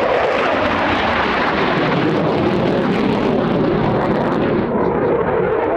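Eurofighter Typhoon's twin EJ200 turbofan jet engines, a loud, steady jet noise as the fighter flies its display.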